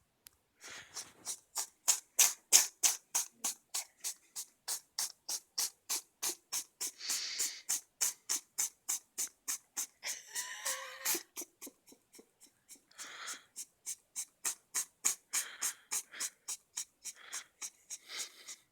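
A cat congested with a cold, making a long, regular run of short clicking snuffles, about four a second, with a few breathier snorts among them.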